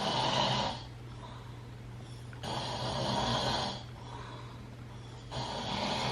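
A sleeping person snoring: long rasping snores come about every three seconds, each lasting over a second, over a steady low hum. The anti-snoring remedy being tried has not stopped it, and the listener judges it is not working well.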